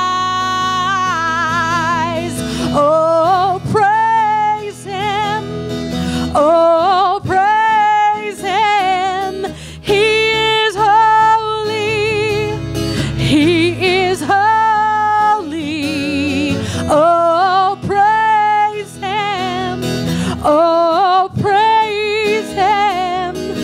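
Live worship band: a woman singing long, wavering notes that swoop up at the start of each phrase, over strummed acoustic guitar and electric bass.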